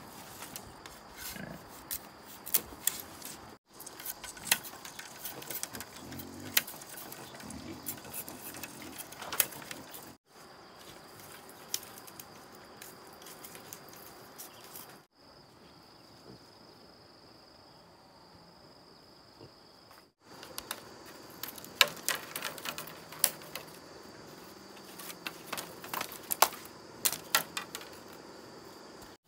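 Split bamboo strips clicking and knocking against each other and the ground as they are cut with a knife and laid out by hand, in scattered sharp taps. A steady high-pitched whine runs underneath.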